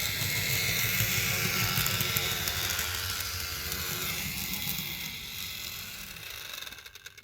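Roco BR 290 (V90) model diesel locomotive running on the track, its motor and drive making a loud steady mechanical rumble and hiss that fades away near the end. The owner guesses this is the motor itself rather than the gears, and that the motor's driveshaft may need sewing machine oil.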